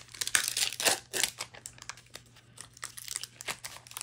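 Crinkling and rustling of a trading-card booster pack's foil wrapper being handled, crackly and dense for the first second and a half, then lighter and sparser.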